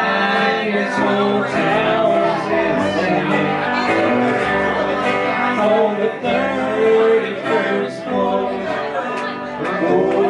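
Live band playing a country song on electric guitar and upright bass.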